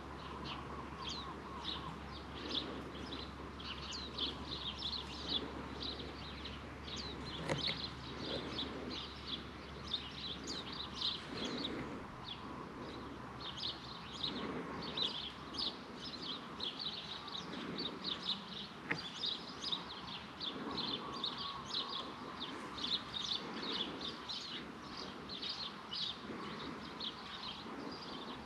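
Birds chirping and calling steadily, a dense run of short high chirps, over a faint low rumble. A single sharp click comes about seven and a half seconds in.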